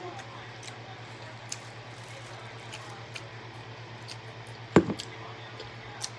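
Close-up eating sounds: wet chewing and lip-smacking with small clicks, and one sharp knock a little under five seconds in, over a steady low hum.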